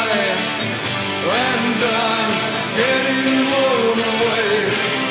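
Rock music from a full band, with a melody line that bends up and down in pitch.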